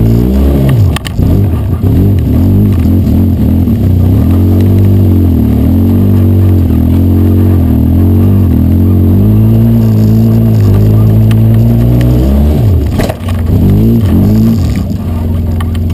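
Polaris RZR side-by-side's engine revving up and down under heavy throttle as it churns through deep, soupy mud. The revs drop briefly about thirteen seconds in, with a knock, and then pick up again.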